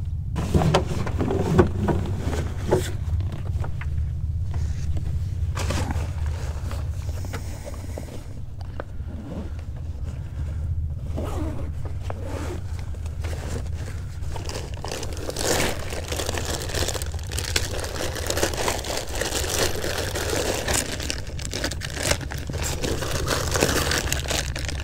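A zippered fabric backpack being opened and rummaged through by hand, with scraping and zipper sounds, then a plastic bait package crinkling near the end, all over a steady low rumble.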